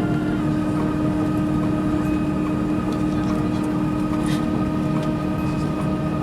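Steady airliner cabin noise inside an Airbus A350-941 in service, with a constant low hum and a few fainter steady tones above it.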